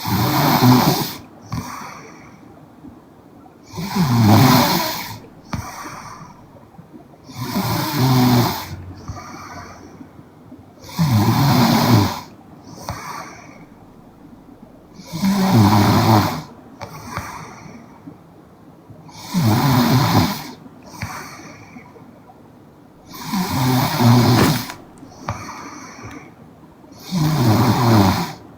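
A young woman snoring in her sleep: a loud, rattling snore about every four seconds, eight in all, each followed by a fainter breath.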